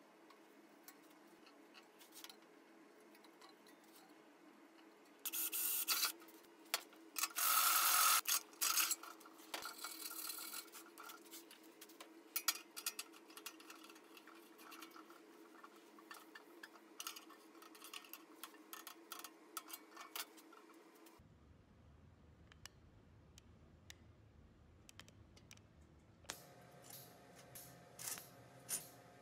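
Steel parts being handled and fitted on a steel welding table: scattered metallic clicks, taps and knocks over a steady low workshop hum. Two short loud bursts of noise about five and seven seconds in.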